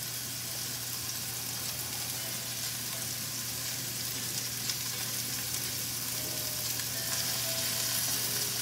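Potatoes frying in a pan, a steady sizzle.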